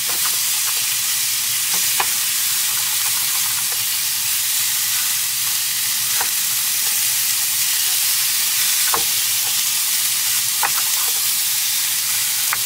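Chicken pieces sizzling steadily as they brown in a non-stick pan on a portable gas stove. A spatula knocks against the pan now and then, about five times, as the chicken is chopped into smaller chunks.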